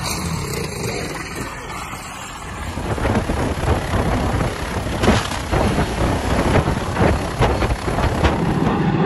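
A helicopter's rotor and engine running close by and loud, with uneven thumps; it starts about two and a half seconds in, after a quieter stretch of outdoor noise.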